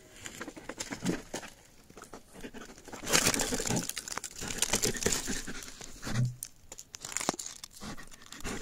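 A dog scratching and digging at the hole in a hollow tree where a fox has gone to ground, with dry wood and leaves crackling and tearing in irregular bursts, busiest in the middle.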